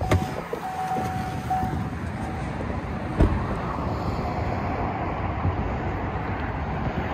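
Steady rush of road traffic from a highway. A steady tone sounds for the first second and a half, and a single thump comes about three seconds in.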